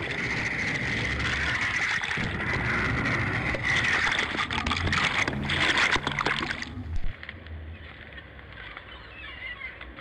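Seawater rushing and churning over a camera held at the surface, over the steady low drone of a fishing trawler's engine. The rush cuts off suddenly about seven seconds in, leaving the engine drone and a few faint gull calls.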